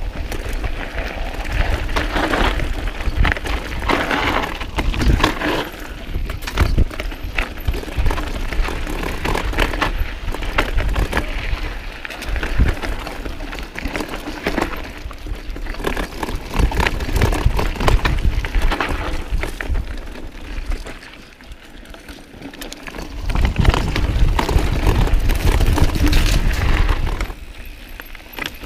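Mountain bike riding over a rocky dirt singletrack: tyres crunching and the bike rattling and clattering over rocks and roots. Wind buffets the microphone as a low rumble, heaviest in a fast stretch near the end.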